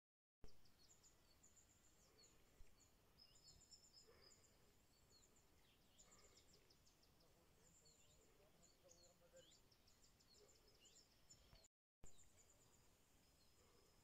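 Faint birdsong: several small birds chirping and trilling, their high, quick calls overlapping, over a faint low hiss. The sound drops out completely for a moment about three-quarters of the way through.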